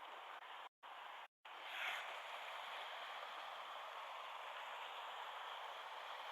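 Mountain stream water rushing steadily over rocks. It cuts out completely twice, briefly, a little under and around a second and a half in, and swells briefly louder about two seconds in.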